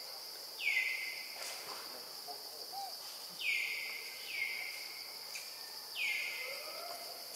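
Forest ambience: a steady high-pitched insect drone, with a bird calling four times, each call a short note that drops quickly in pitch and then holds.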